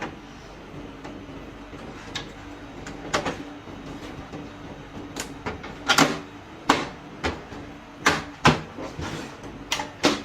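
Irregular sharp clicks and knocks of plastic parts being handled and fitted on an HP LaserJet printer, the loudest from about six seconds in, over a faint steady hum.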